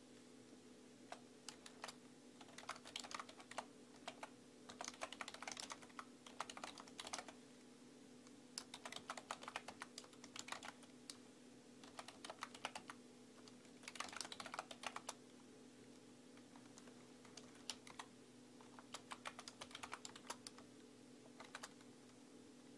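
Typing on a computer keyboard: quick runs of key clicks in bursts, with short pauses between words, over a faint steady hum.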